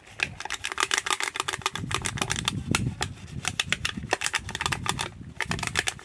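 A rough sandpaper fig leaf rubbed quickly back and forth over a small hand-held object to sand and polish it: a fast run of dry scratching strokes, several a second, with a brief pause about five seconds in.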